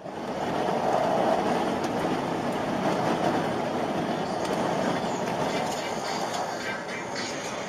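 Steady road noise of a vehicle driving at highway speed: an unbroken rumble of tyres and engine, easing slightly near the end.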